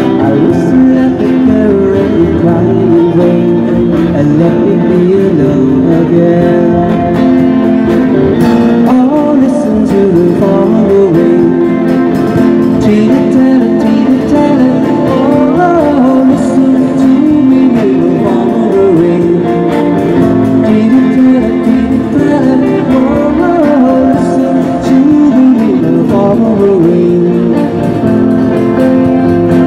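Live band playing an oldies pop song through a PA: a voice singing into a microphone over electric guitar accompaniment.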